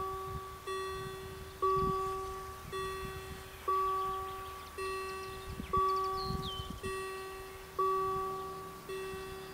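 German level-crossing warning bells striking about once a second, each stroke ringing out and fading before the next, signalling that the crossing is closing for an approaching train.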